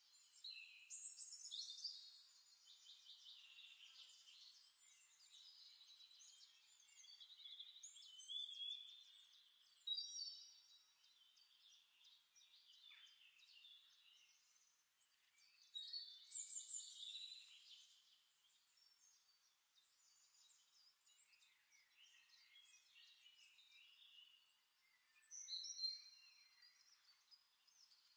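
Faint birdsong: many short chirps and trills from several birds, with louder bursts of calls now and then.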